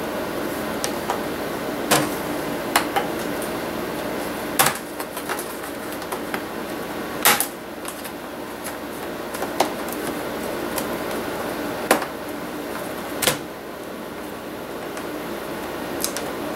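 Plastic snap clips of a laptop's screen bezel popping loose one after another as the bezel is pried off by hand: sharp clicks every second or two, about eight in all, over a steady background hum.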